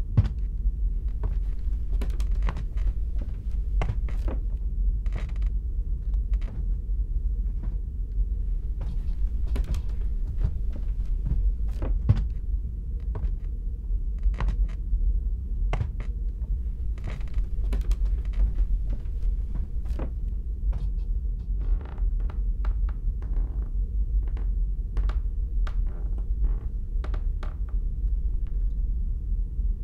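A steady low rumbling drone, with scattered short knocks and creaks over it at irregular intervals.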